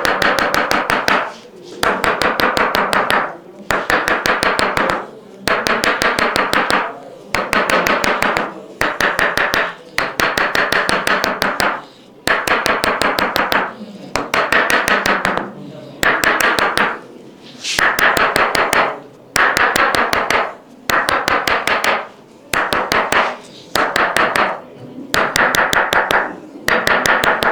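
Rapid percussive massage strikes on a patient's back, about ten a second, in repeated bursts of a second or so broken by brief pauses.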